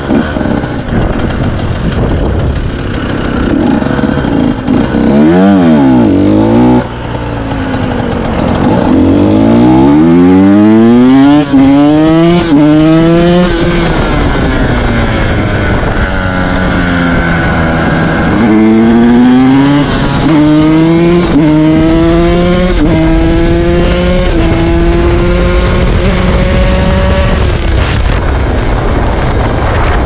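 2017 KTM 125 SX two-stroke single-cylinder engine accelerating hard and shifting up through the gears twice, its pitch climbing and dropping back at each upshift. Between the runs it eases off and the pitch falls. Wind rushes over the onboard microphone throughout.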